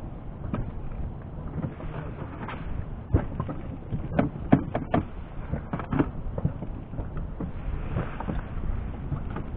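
Wind rumbling on the microphone, with a cluster of sharp clicks and knocks about three to six seconds in.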